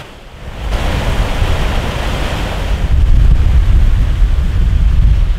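Steady rush of water in a mill's water channel, swelling about a second in, with wind buffeting the microphone in gusty low rumbles that grow stronger midway.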